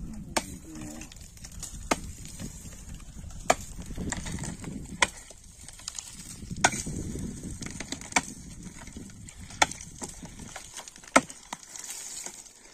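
Ice being chopped with a hand tool: eight sharp, evenly paced strikes, one about every second and a half, breaking up the ice on a frozen ditch.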